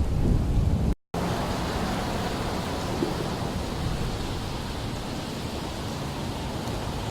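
Heavy storm rain and wind: a steady hiss with wind buffeting the microphone at first, broken by a brief silent gap about a second in where the recording cuts.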